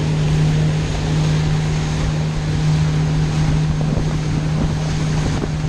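Boat motor running steadily with a constant low hum, with wind buffeting the microphone.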